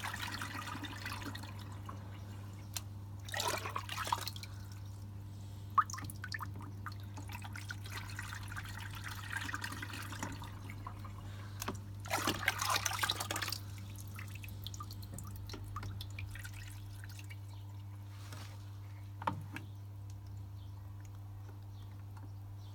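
Zanussi ZWC 1301 washing machine in its rinse: water trickling and dripping in the drum over a steady low hum, with two louder surges of splashing about three and a half and twelve seconds in.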